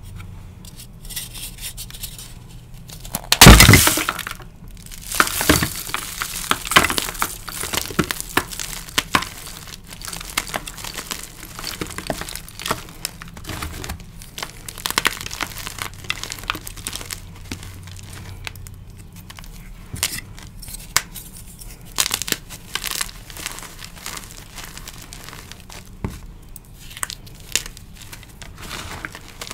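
Dyed gym chalk blocks coated in glitter crushed by hand: one loud crack about three and a half seconds in as the first block bursts, then repeated crunching and crumbling as the chalk is broken into powder.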